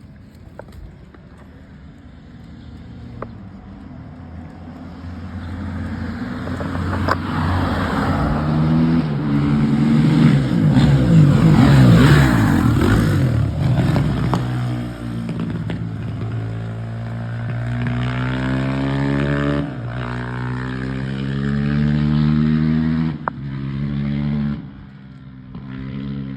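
Honda CRF450 dirt bike's single-cylinder four-stroke engine through an FMF aftermarket exhaust, revving through the gears. It grows louder over several seconds to its loudest near the middle, then keeps revving up and down and drops away sharply near the end.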